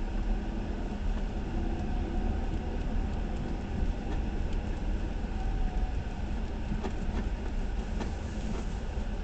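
Lada Vesta on the move: a steady low rumble with faint short squeaks and a few clicks from the yellow polyurethane front anti-roll bar bushings, which squeak in frost.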